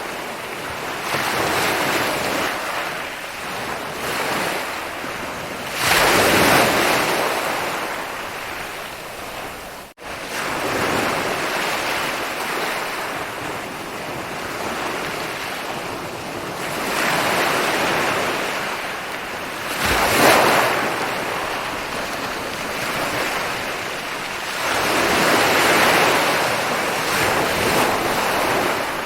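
Ocean waves breaking and washing up a beach, the surf swelling and fading every few seconds, with the strongest crashes about six and twenty seconds in. The sound cuts out for an instant about ten seconds in.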